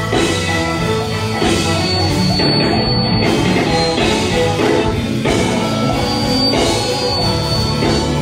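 Live gospel band music with drums and guitar, played loud.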